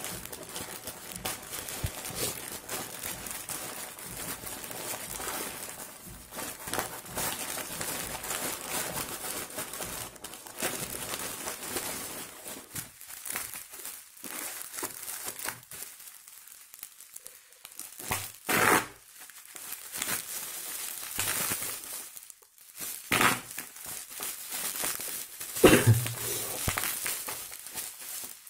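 Plastic courier mailer and bubble wrap crinkling and tearing as a parcel is opened by hand and the wrapped item is unwrapped. The rustling goes on steadily, with a quieter spell in the middle, then three louder, sharp crinkles in the second half, the last one the loudest.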